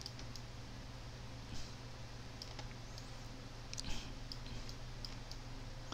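A handful of soft, scattered clicks from a computer mouse and keyboard, over a steady low electrical hum.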